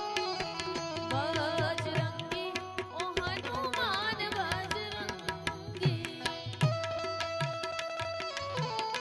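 Live Indian devotional folk music: a tabla beats out an even rhythm with deep bass strokes under held harmonium chords. About a second in, a wavering, ornamented melody line comes in and fades out again by the middle.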